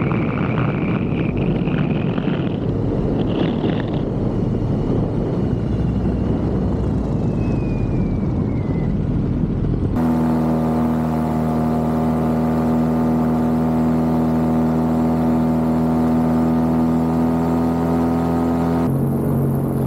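Small aircraft motor running steadily in flight, with a faint whistling tone that slides down and fades. About halfway through it cuts suddenly to sustained synthesizer chords.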